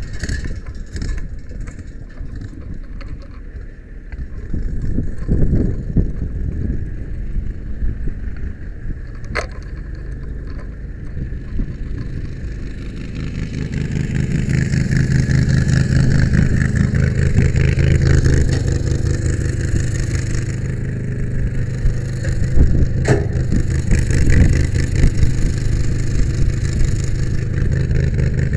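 Brush truck driving, heard from its rear bed: engine and road noise, growing louder about halfway through as the truck picks up speed, with an occasional sharp click or rattle.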